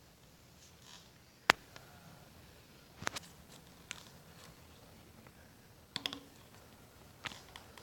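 Handling noise: about five light clicks with faint rustling between them, as fingers work the red rubber terminal boot and wiring on a small engine's electric starter motor.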